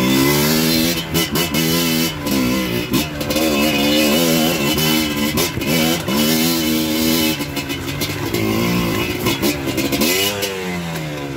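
Small off-road dirt bike engine revving up and down again and again, its pitch rising and falling every second or two as the throttle opens and closes.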